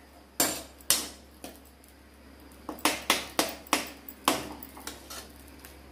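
Steel ladle and spatula knocking and scraping against a metal kadai while stirring curry: a few separate clinks in the first second and a half, then a quicker run of knocks from about three seconds in.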